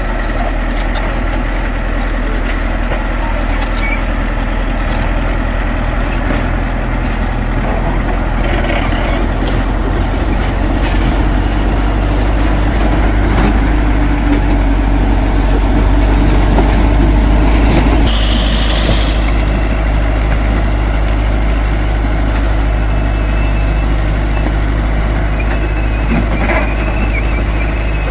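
Heavy construction machine's diesel engine running steadily under work. It grows louder about halfway through, then eases back, with a few scattered knocks.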